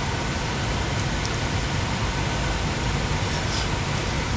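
Car air-conditioning blower running steadily inside the cabin, a constant rush of air over a low rumble.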